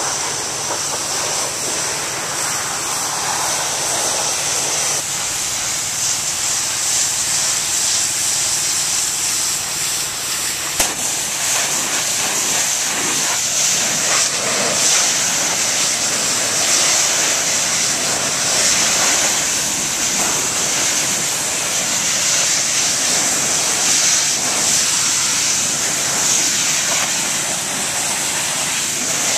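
Pressure washer spraying a high-pressure water jet onto roof tiles, a loud steady hiss. A single short click about eleven seconds in.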